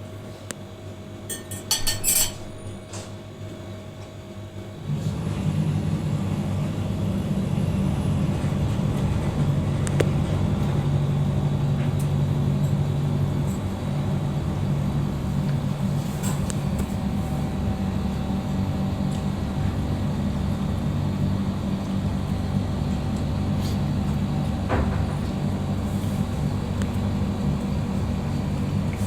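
A few quick glassy clinks, then a steady low machine hum starts about five seconds in and carries on.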